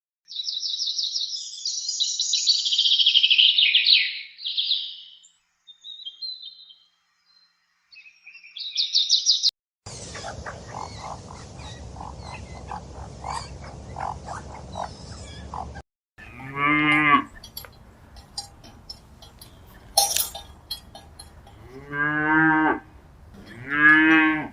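High-pitched chirping for the first few seconds, with a few more chirps a little later. Then, over a steady background hiss, cattle mooing: three short moos in the second half.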